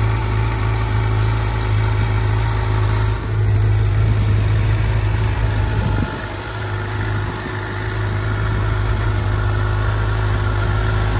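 2019 Suzuki GSX-R 750's inline-four engine idling steadily with an M4 full exhaust fitted. The engine note dips briefly about three seconds in and softens a little about six seconds in, with no revving.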